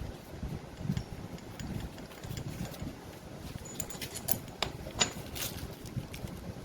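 Sharp metallic clinks and taps of tools and steel parts being handled while the compressor is dismantled, clustered in the second half, a couple of them leaving a brief high ring. Under them runs a low steady rumble.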